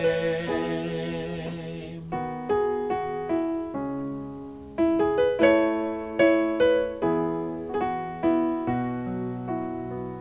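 Piano playing an instrumental interlude of a worship song: a rhythmic run of struck chords and notes, each dying away, with a held chord above it that fades out about two seconds in.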